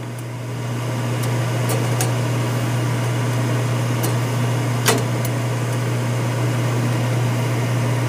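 Gas package unit's draft inducer motor running with a steady hum during the heating start-up, before ignition. A few light clicks sound over it, the clearest about five seconds in.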